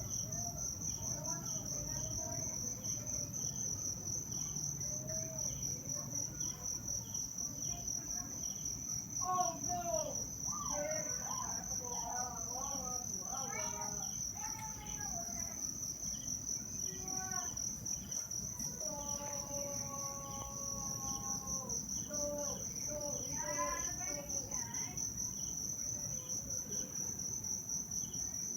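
Insects, cricket-like, trilling with a steady high pulsing note, joined now and then by bursts of warbling, gliding calls lower in pitch.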